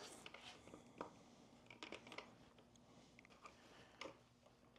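Near silence broken by a handful of faint, sharp clicks and taps as plastic 360 camera bodies are handled and fitted onto a handlebar camera mount.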